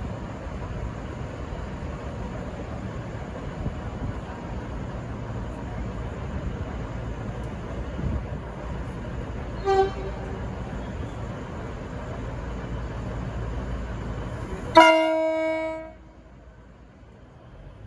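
V/Line VLocity diesel railcar set running with a steady rumble and sounding its horn: a short toot about ten seconds in, then a louder blast lasting about a second near the end.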